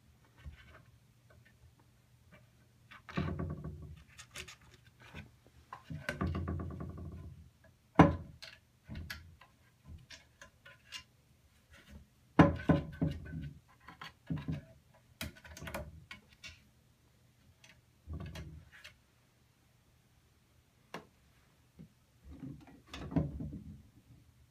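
Scattered knocks, thuds and scuffling from a cat climbing about inside a cabinet. The two loudest are sharp knocks, about a third of the way and halfway through.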